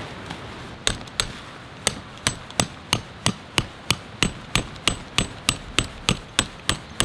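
A metal tent peg being hammered into gravelly ground: two taps about a second in, then a steady run of sharp strikes about three a second, each with a brief metallic ring.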